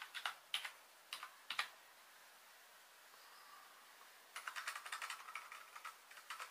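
Keys of a Rii RK200 wireless keyboard being typed on, quiet and not very noisy: a few scattered keystrokes, a pause of about two and a half seconds, then a quick run of keystrokes near the end.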